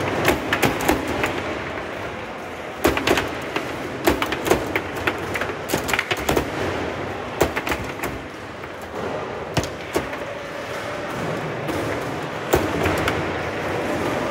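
Foosball table in play: irregular sharp knocks of the ball being struck by the players' figures and hitting the table walls, with rods clacking, coming in clusters over a steady background hubbub.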